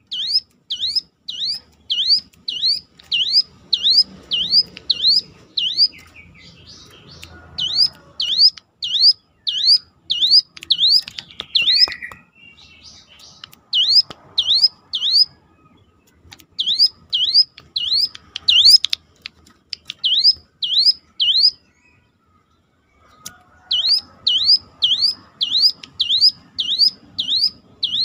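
Ciblek gunung, a prinia, singing a fast series of sharp, identical swooping notes, about two or three a second, in bursts broken by short pauses; siren-like.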